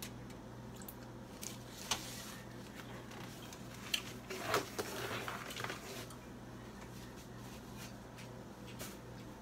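Faint kitchen handling sounds over a steady low hum: a few light clicks and knocks, with a short rustle about four to five and a half seconds in.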